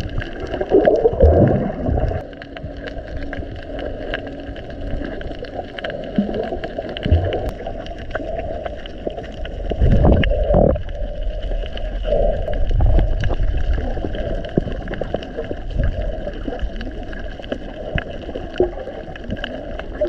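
Muffled underwater sound picked up by an action camera held below the surface: water sloshing and gurgling against the camera, with louder swells about a second in and again about ten seconds in.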